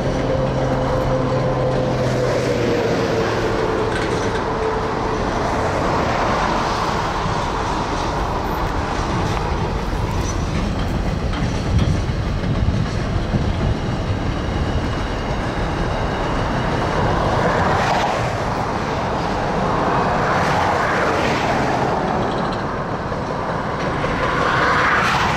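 Container wagons of a long freight train rolling past: a steady noise of steel wheels on rail with repeated clicks of wheelsets crossing rail joints, swelling louder a few times near the end as the last wagons pass.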